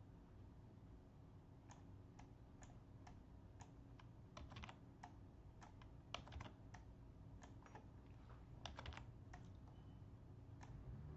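Faint, irregular clicking of a computer keyboard and mouse, a couple of dozen sharp clicks, some in quick pairs or clusters, over a low steady hum.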